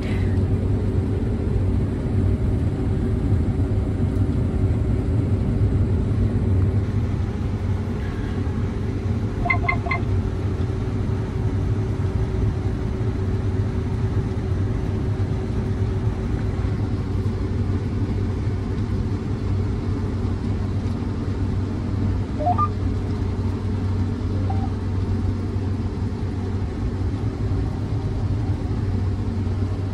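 A combine harvester running steadily while cutting grain, heard from inside its cab as an even low hum of engine and threshing machinery. Two short beeps sound about ten seconds in.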